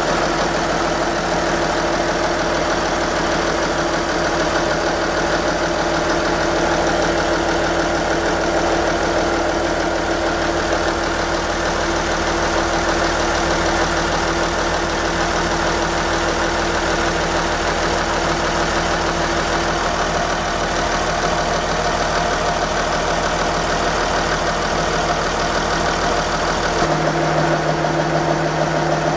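Marine inboard diesel engine idling steadily, heard up close in the engine room. Its low tone shifts slightly near the end.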